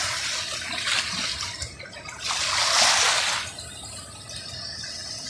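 Whitewater rapids rushing steadily, with a louder surge of water noise about two seconds in that lasts about a second.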